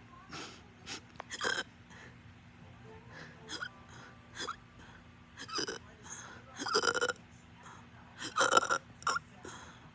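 A person hiccupping over and over: about ten short, sharp hiccups at irregular intervals, some in quick pairs, the loudest near the middle and toward the end.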